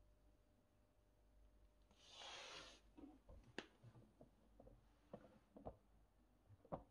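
Near silence in a small room. About two seconds in comes a brief rustle, then a few faint, scattered clicks and knocks of handling.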